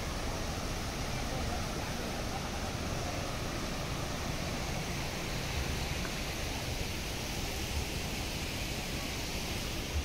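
Steady rushing of a waterfall's cascades over rocks, an even hiss with no breaks.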